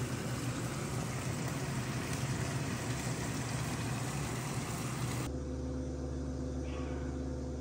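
Steady mechanical hum with a rushing hiss over it. About five seconds in it cuts abruptly to a smoother, lower steady hum.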